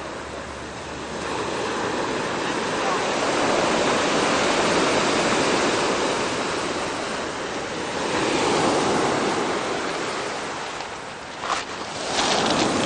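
Ocean surf breaking and washing up the shore, swelling twice as waves come in, with a brief sharp sound near the end.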